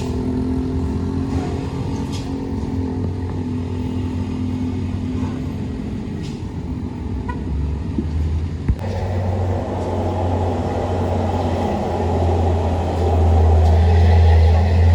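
Motor vehicle engines running in traffic on a steep climb, a steady low rumble. A sharp knock about nine seconds in, after which the engine noise grows louder near the end.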